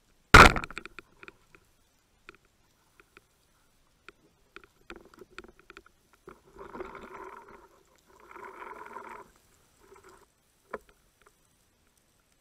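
Speargun firing underwater about half a second in: a sharp crack that fades quickly into rapid clicks. Scattered knocks and ticks follow, with two longer scraping noises of about a second each midway, while the speared dentex is held on the taut line.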